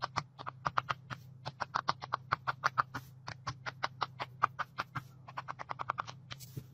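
Bubbles of a large square rainbow silicone push-pop fidget toy pressed in one after another by fingers, a quick, even run of small pops at about seven a second.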